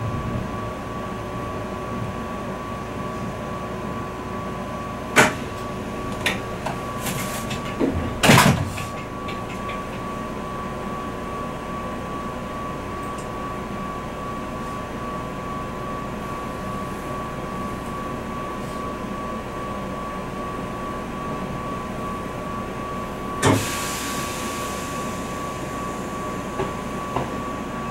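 Inside an Izukyu 2100 series 'Resort 21' train car: a steady hum with unchanging tones, broken by a few sharp knocks and clunks in the first third. Near the end a single clunk is followed by a short hiss that fades.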